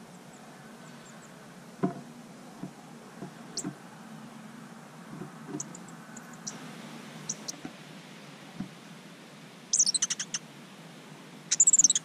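Superb fairy-wrens calling: a few faint high chirps, then two loud, rapid, high-pitched trills near the end, about two seconds apart. Scattered soft knocks and clicks come through the first part.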